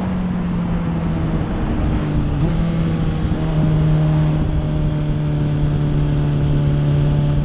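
Motorcycle engine running while the bike slows down, with wind rumbling on the microphone. The engine note jumps briefly about two and a half seconds in, then holds steady.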